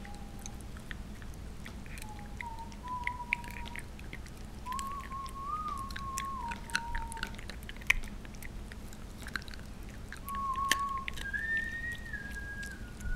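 Shiba Inu puppy chewing a crispy treat, with many small sharp crunches as it breaks into crumbs. Thin whistle-like tones run through it, stepping up and down in pitch.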